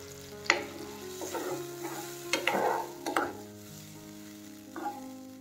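A spatula stirring and scraping through watery tomato-onion masala in a nonstick wok, in about five short strokes that are loudest in the middle, over a low sizzle.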